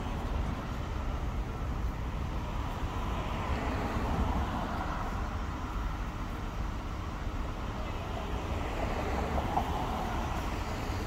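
Steady road traffic noise, cars passing on the street.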